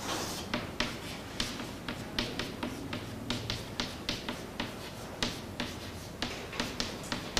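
Chalk writing on a chalkboard: a quick, irregular run of sharp taps, with short scratches between them, as symbols are written.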